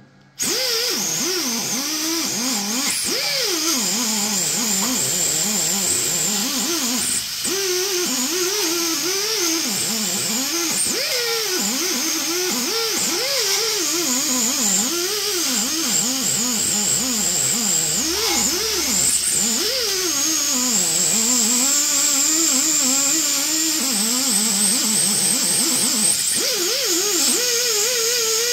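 Ingersoll Rand 90-degree air tool buffing the exhaust-manifold gasket surface on the tractor's engine: a loud whine that starts abruptly and wavers up and down in pitch as the pad is pressed on and eased off.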